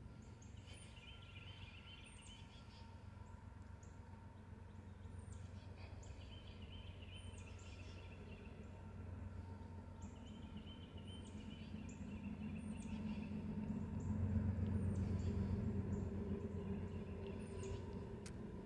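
Woodland birds calling, with short high chirps and a quick trill repeated every few seconds, over a low rumble that swells about two thirds of the way through.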